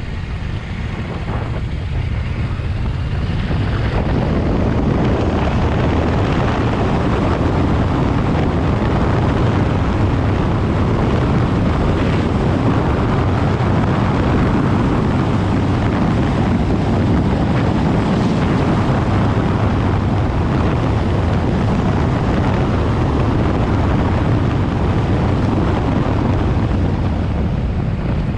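Yamaha Ténéré 700's 689 cc parallel-twin engine running as the bike is ridden, with wind rushing over the microphone. It grows louder about four seconds in and then holds steady.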